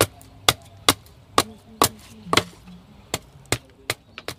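Machete blade chopping and splitting a wooden stick into kindling: about ten sharp strikes, roughly two a second.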